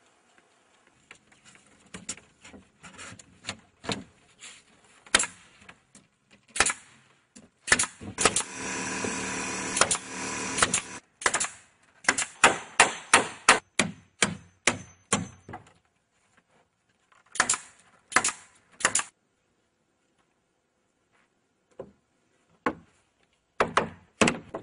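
Hammer blows on wood during carpentry on a wooden chicken coop: scattered knocks, then an even run of about three strikes a second for a few seconds, with more strikes later. A steady noise lasts about three seconds partway through.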